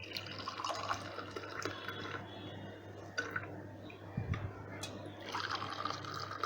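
Spiced ginger tea poured into cups in two pours, one at the start and one starting about five seconds in. Between them there are a couple of light clinks and a low knock.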